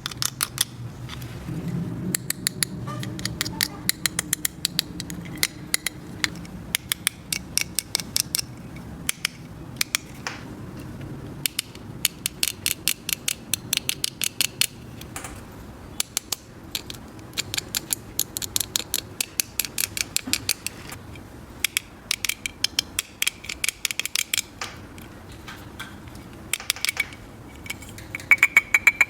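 Small plastic toy pieces being handled, with many quick light clicks and taps, often in rapid clusters.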